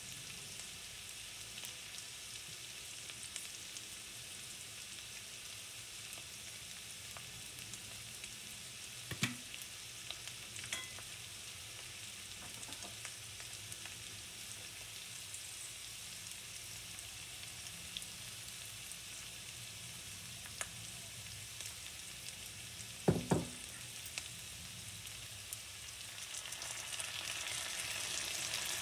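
Sliced bacon and onion frying in olive oil in an enamelled pan: a steady sizzle, with a short knock about nine seconds in and a double knock about twenty-three seconds in. Near the end the sizzle grows louder as tomato puree is poured into the hot pan.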